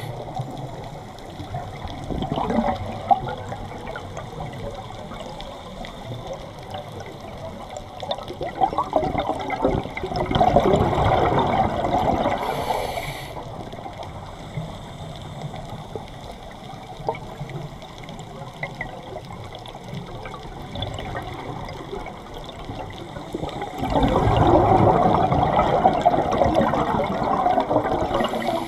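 Scuba diver breathing through a regulator underwater: long bubbling rushes of exhaled air about eight seconds in and again near the end, with a short hiss of inhalation between them.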